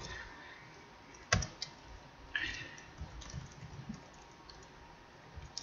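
Computer keyboard typing: a handful of faint, irregular keystrokes.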